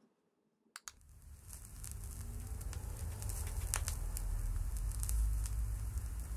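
Turntable stylus set down on a vinyl LP: a couple of soft clicks, then surface crackle and pops over a low rumble that grows louder over the first few seconds in the lead-in groove.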